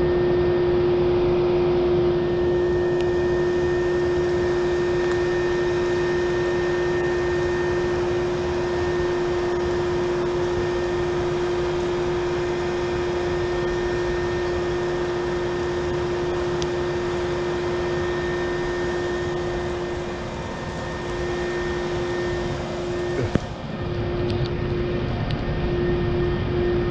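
Steady machine drone with a constant mid-pitched hum, unchanging in level, and a single knock near the end.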